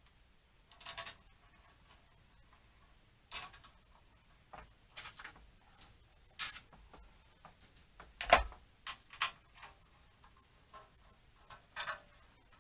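Scattered light clicks and metal clinks of bolts and a hand tool being handled while a filler cap is bolted onto a motorcycle fuel tank, with one louder knock about eight seconds in.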